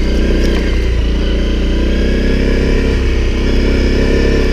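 Honda CRF250L's single-cylinder engine running steadily while the bike is ridden at an even pace.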